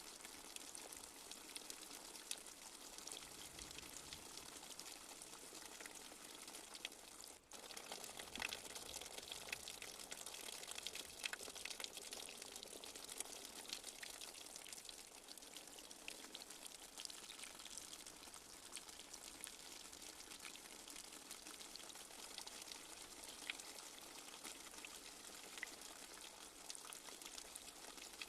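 Light rain falling steadily, with a dense patter of small drops. About seven seconds in the sound drops out for a split second, then carries on a little louder.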